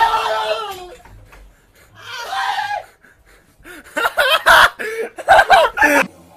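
Excited yelling and laughter in short, broken bursts, loudest from about four seconds in, after a shout that falls in pitch and fades out in the first second.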